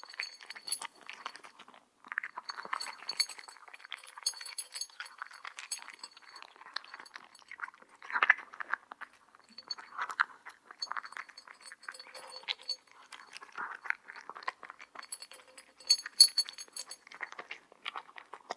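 A cat chewing and crunching its food in quick irregular bites, with repeated clinks that ring briefly, as of something small and hard knocking against the dish. The clinking comes in clusters, loudest about sixteen seconds in.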